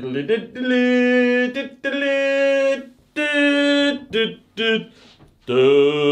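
A man singing a short wordless tune without accompaniment: three held notes, two short ones, then a long lower note near the end.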